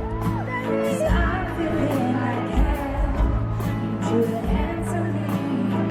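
Live pop ballad played through an arena sound system: sustained keyboard chords over a low bass that pulses on and off, with a few sliding pitched sounds near the start.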